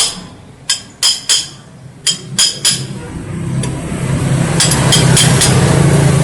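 Sharp metallic taps and clinks of hand tools on metal, singly and in quick pairs. A steady low hum builds from about halfway.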